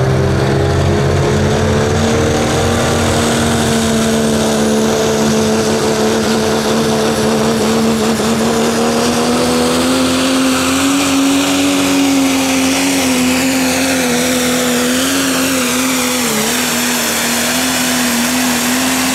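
Pro stock diesel pulling truck, a Dodge Ram with a Cummins inline-six diesel, running flat out under heavy load as it drags the weight sled. It makes a steady drone with a high whistle over it, and its pitch creeps up and wavers slightly as it goes down the track.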